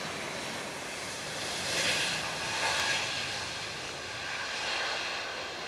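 Airbus A321neo's Pratt & Whitney geared turbofan engines at takeoff power as the jet accelerates down the runway: a steady jet rush that swells about two seconds in and eases slightly toward the end.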